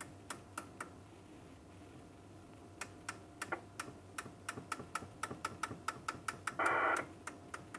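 Channel selector of a Ford Roadmaster 500 CB radio clicking as it is turned through the channels, a run of quick clicks. About two-thirds of the way through, a short burst of hiss comes from the radio's speaker.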